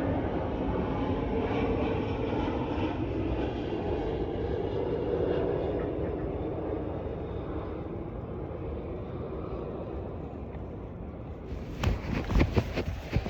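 Airplane passing overhead, its rumble slowly fading as it moves away. Near the end, wind gusts thump against the microphone.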